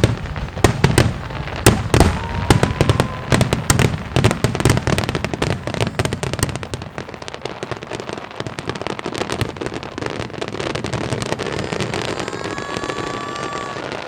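Wide starmine fireworks barrage: rapid shell bursts, several bangs a second, loudest in the first few seconds, thinning into a dense continuous crackle. A faint whistling tone rises about two seconds in, and another sounds near the end.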